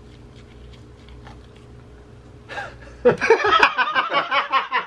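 Faint chewing in a quiet room, then about three seconds in a man starts laughing loudly, a quick run of laughs lasting nearly two seconds.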